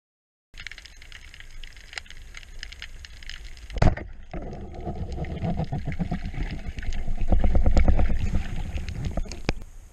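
Underwater, a speargun fires with a single sharp crack about four seconds in. It is followed by several seconds of rapid clattering and low rumbling in the water that swell and then fade near the end.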